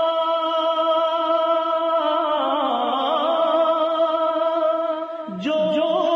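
A naat being sung in long, drawn-out held notes with a slight waver and no instruments. Near the end the note dips and a new one begins.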